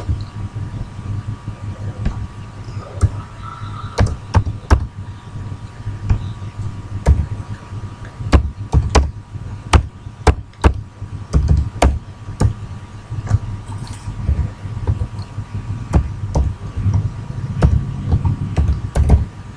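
Computer keyboard being typed on: irregular key clicks, singly and in short quick runs, over a low steady hum.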